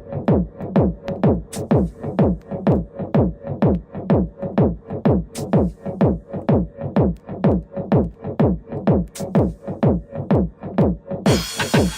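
Electronic dance music with a steady, driving kick-drum beat, each beat a low thump with a falling pitch, a little over two beats a second. Near the end, a bright, hissing high layer of cymbals comes in over the beat.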